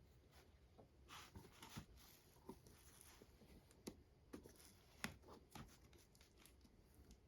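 Faint rustling and scattered sharp clicks of a cardboard card box and its plastic packaging being handled and opened, the loudest click about five seconds in.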